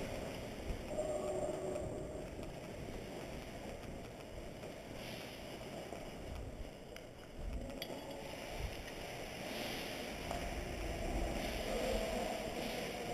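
Low, steady rumble and rustle of a moving airsoft player's gear and footsteps on a body-worn camera's microphone, with a couple of faint clicks about seven to eight seconds in.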